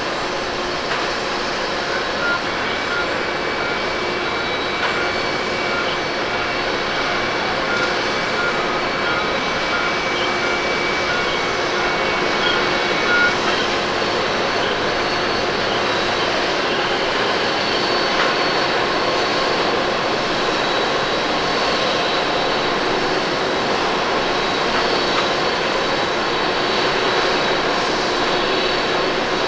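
Jet engines of an Air Do Boeing 767-300ER running steadily as it lands and rolls out along the runway.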